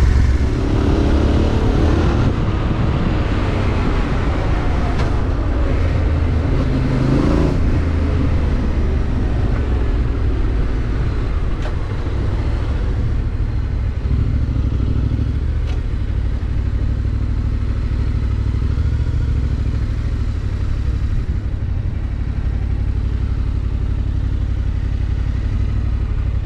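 Yamaha Ténéré 700's parallel-twin engine, fitted with an Akrapovic exhaust, running under way as the motorcycle is ridden, its pitch shifting a few times as the revs change.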